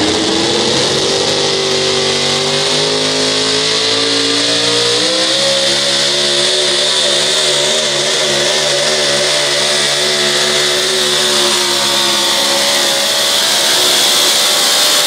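A Ford-bodied four-wheel-drive pulling truck's engine making a pull. It revs up in the first second, then holds loud, high revs under load, the note wavering slightly as the truck works down the track.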